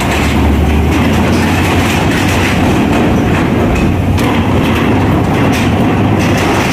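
Scania tractor unit's diesel engine pulling hard on a heavily loaded multi-axle low-bed trailer carrying a crawler crane, with the trailer's many tyres rumbling and clattering over the steel grating of the dock and ferry ramp. A deep engine rumble is strongest in the first second, and there are a few clanks along the way.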